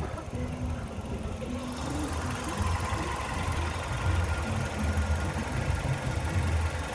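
A 2010 Hyundai i30's DOHC 16-valve petrol engine running steadily at idle, with a low, even running sound that grows a little louder about two and a half seconds in.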